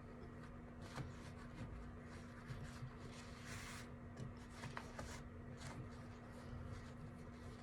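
Faint rustling and crinkling of ribbon being scrunched and twisted by hand, with scattered soft clicks, over a steady low hum.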